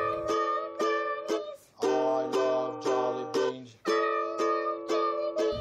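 Background music: a plucked string instrument playing a melody in short repeated phrases, with no singing.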